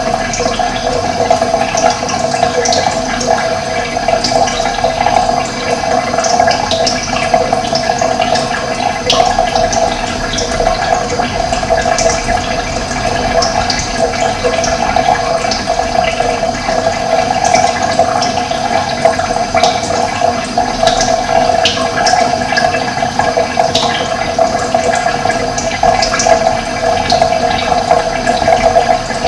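Running water: a steady, loud rush of flowing water with quick high ticks scattered through it.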